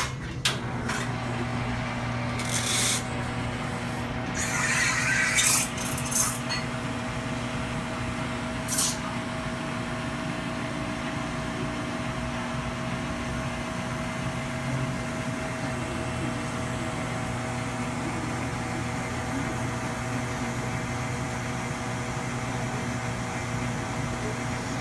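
Commercial espresso machine's pump humming steadily while a shot is pulled, with a few clicks, knocks and short hisses from handling the machine and cups in the first nine seconds.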